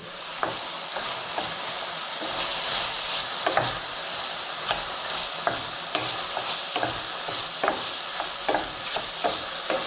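Food sizzling in a hot frying pan, with a spoon scraping and knocking against the pan at irregular intervals as it is stirred.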